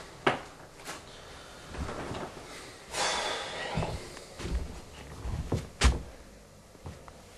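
Several separate knocks and thumps, the loudest about six seconds in, with a short rustling burst about three seconds in.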